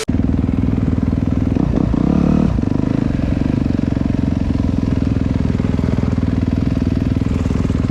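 Dirt bike engine running steadily, with a brief rise around two seconds in.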